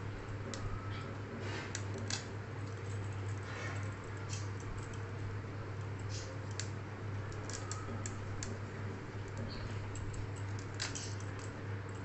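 Scales being scraped off a hilsa fish with a hand-held fish scaler: irregular short scraping strokes and clicks, about one or two a second, over a steady low hum.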